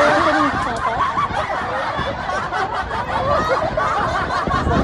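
People laughing and giggling without a break.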